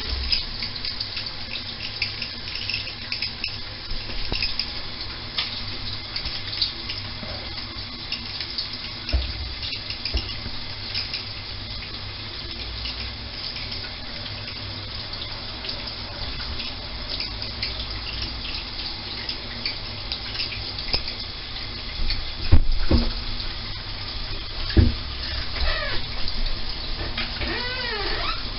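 Water spraying steadily from a shower head in an even hiss, with a few knocks and some short squeaky wavering sounds near the end.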